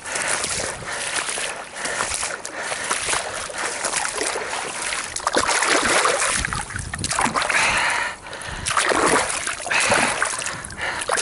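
A fish-cleaning knife being rinsed in water, with splashing and sloshing in uneven bursts as the blade is swished clean.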